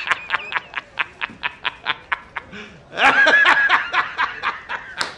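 A man laughing hard from a film soundtrack: a fast, even run of 'ha-ha-ha' pulses, about six a second, breaking into a longer drawn-out laugh about three seconds in, then a few more pulses.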